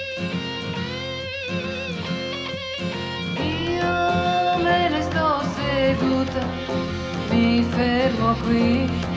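A woman singing an Italian pop song with vibrato, over band accompaniment. About three and a half seconds in, the backing grows fuller and louder.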